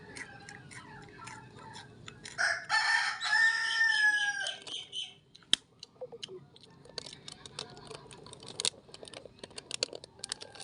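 A rooster crowing once, about two seconds in: a long crow ending in a held, slightly falling note. Fainter clucking calls come before it, and small clicks sound throughout.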